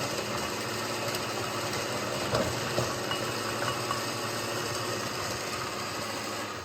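Countertop blender motor running steadily while pureeing soaked dried chilies, onion and garlic into a thick chili paste, with a couple of small knocks about a third of the way in.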